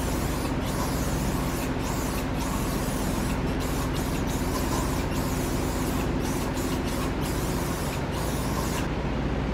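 Aerosol can of OFF! insect repellent hissing as it is sprayed onto a car headlight lens in long bursts with several brief breaks. The spraying stops shortly before the end, over a steady low hum.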